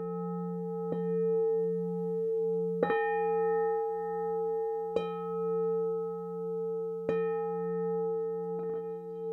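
A large metal singing bowl struck with a padded mallet five times, about every two seconds, each strike renewing a long ringing tone made of several steady pitches; the low tone wavers slowly in loudness as it rings.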